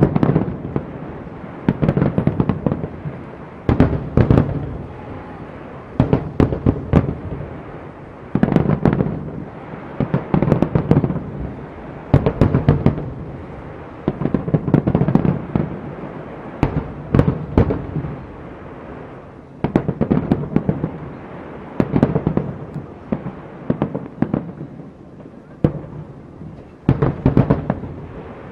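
Aerial fireworks display: shells bursting in a steady run of booms, about one every one to two seconds, each trailing off in a rolling echo, with crackling in between.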